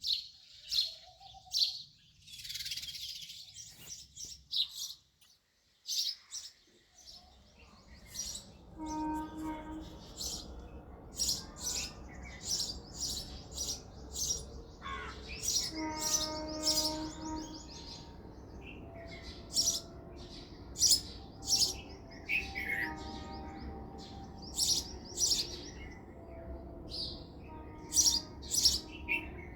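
House sparrows chirping: repeated short, high chirps, loosely spaced and coming in quick runs at times. From about seven seconds in, a low steady background rumble runs under them, with a few faint held tones.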